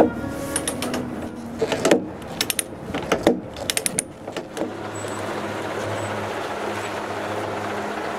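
Load-binder chain rattling and clinking in quick, irregular clicks as the chain over the log load is tightened. About four and a half seconds in the clicks stop and a steady low hum with noise takes over.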